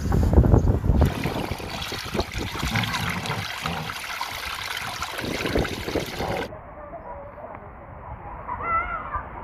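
Wind buffeting the microphone, then water rushing down a water slide as a steady hiss. About six and a half seconds in the sound turns duller and quieter, and near the end comes a short wavering pitched call.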